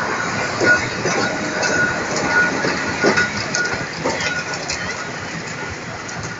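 Blackpool Boat tram no. 600, an open-topped English Electric street tram, running past on its rails: a steady rumble of wheels on track with several short knocks as the wheels cross rail joints and points, and a thin high squeal coming and going.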